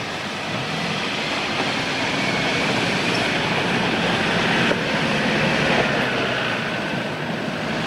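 Jeep Wrangler and Cherokee 4x4s crawling down a steep dirt slope in first gear, low range: a steady engine and drivetrain noise with a faint high whine.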